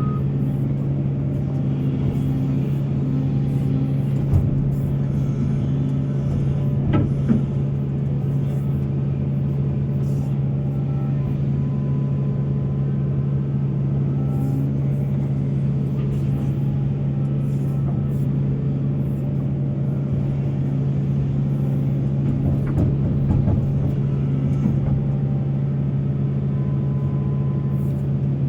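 Heavy diesel mining machinery, excavators and coal trucks, running steadily with a deep, unbroken engine drone, and a few short knocks and clanks over it.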